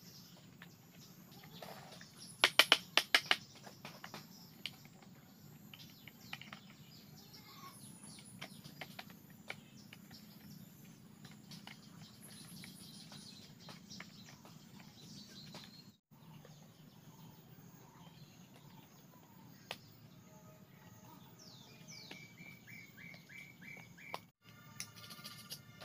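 Bamboo slats clicking and knocking against a bamboo frame as they are pressed into place by hand, with a quick cluster of sharp knocks a few seconds in and faint taps after. Birds chirp in the background, with a short run of quick chirps near the end.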